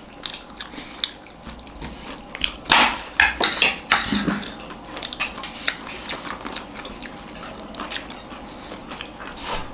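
Close-up eating noises: spoons tapping and scraping on plates and mouthfuls of papadi chaat and samosa being chewed, a run of short clicks and taps that is busiest around three to four seconds in.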